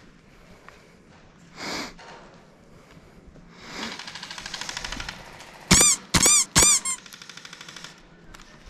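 Bursts of full-auto airsoft gunfire: runs of rapid ticking shots, and about two-thirds through, three loud short bursts with a squeaky, ringing chirp.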